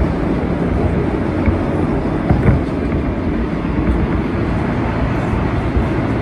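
Kawasaki R160B subway train with Alstom propulsion running at speed through a tunnel: a steady, deep rumble of wheels on rail with a few faint ticks.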